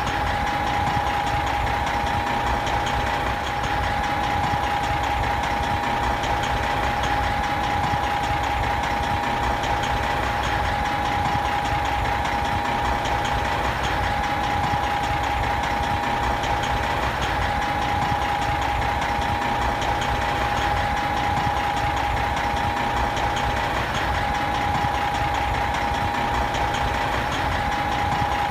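Big truck's diesel engine idling steadily, with a constant whine running over the engine noise.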